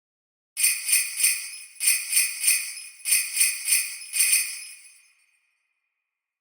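Sleigh bells shaken in a steady rhythm, about a dozen bright jingling shakes in groups of roughly three, starting half a second in and ringing away after about four and a half seconds: the timer's end alarm signalling that time is up.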